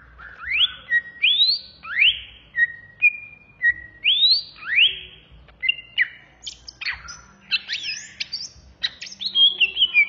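A greater green leafbird (cucak ijo) singing loudly in its 'ngentrok' style. Rising whistles sweep up again and again, alternating with short level notes. In the second half the song turns into a quicker, higher jumble of varied notes.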